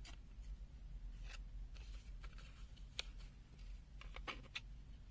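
Faint handling sounds of a small plastic multimeter and its circuit board: a few light clicks and scrapes, with a sharper click about three seconds in and a quick run of three or four clicks near the end, over a low steady hum.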